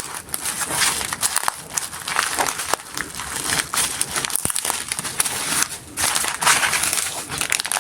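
Plastic packaging crinkling and rustling as it is handled and opened by hand, with irregular crackles and small clicks.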